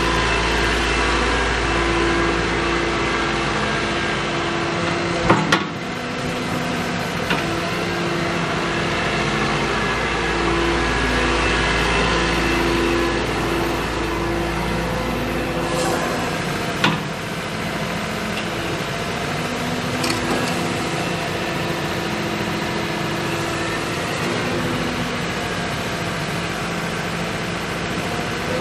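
Caterpillar excavator's diesel engine running steadily, with mid-pitched tones that come and go and a low rumble that rises and drops. Two sharp knocks, about five seconds in and again past the middle.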